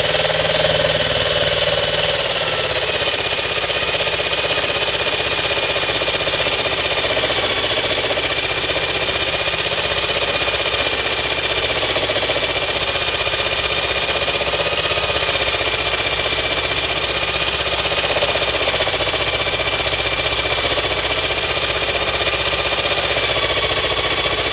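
DeWalt DW341 corded jigsaw with a metal-cutting blade sawing through steel: a steady motor whine over the rasp of the reciprocating blade, held at a controlled speed so the blade does not overheat.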